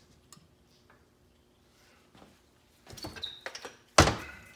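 Metal transmission parts handled on a steel workbench: a few light clicks and scrapes with a brief high squeak, then a loud metal clunk about four seconds in as the 4L60E clutch drum and its shaft are picked up and knocked against the bench.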